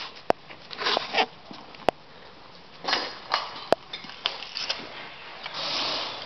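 Three single sharp cracks about a second and a half to two seconds apart, typical of single airsoft shots, among short bursts of rustling and shuffling movement.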